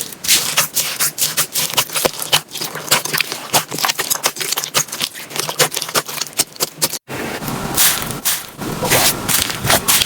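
Slime being squeezed and poked by hand, a rapid run of sticky clicks and pops. The sound breaks off sharply about seven seconds in and another bout of the same starts.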